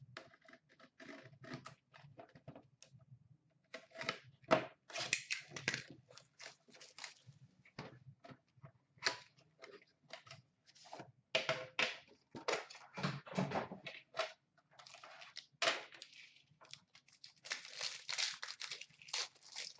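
A sealed Upper Deck Premier hockey card box being torn open by hand: irregular tearing, crinkling plastic wrap and crunching cardboard, in bursts that come thick and fast, loudest about four to six seconds in and again near the end.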